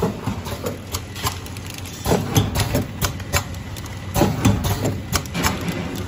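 Automatic powder sachet packing machine running: a steady low motor hum under a clatter of knocks and clicks that comes in louder bursts about every two seconds, one per sachet at its set speed of 30 packs a minute.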